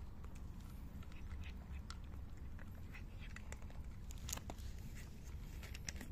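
Cats crunching dry kibble from a shared bowl: many quick, irregular crunches over a steady low rumble.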